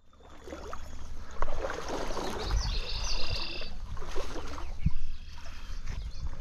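Stream water splashing and sloshing, with a few dull knocks.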